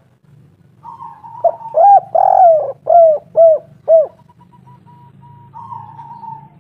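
Spotted dove (tekukur, derkuku) cooing: a faint call about a second in, then a run of about six loud, down-bending coos with one drawn-out note in the middle, and a fainter call near the end. A steady low hum runs underneath.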